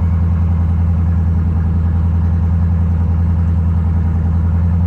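1994 Ford Bronco's small-block Ford V8 idling steadily.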